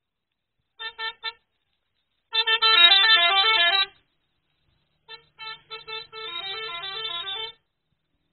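Indonesian bus 'telolet' musical horn playing: three short toots, then a quick tune of stepping notes; the same toots-and-tune pattern sounds again about five seconds in.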